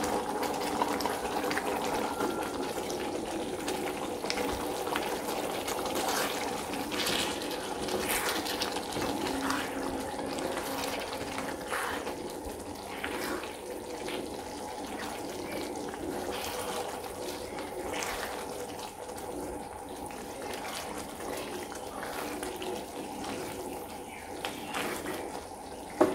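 Thickened masala gravy simmering in a pan on a lit stove with a steady hiss, while a spoon scrapes and clicks against the pan as fried chicken pieces are stirred in; one sharp knock near the end.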